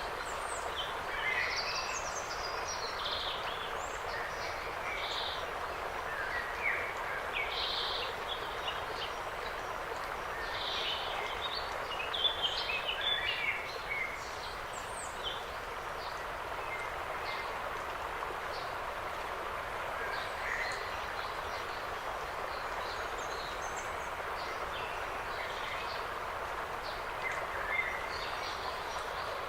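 Birds chirping and calling in short, scattered notes over a steady rushing background hiss. The calls come thickly at first and thin out after about halfway.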